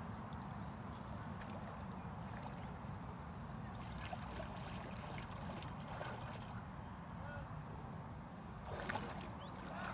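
Faint waterside ambience: a steady low rumble with scattered faint short chirps, and a brief louder rustle about nine seconds in.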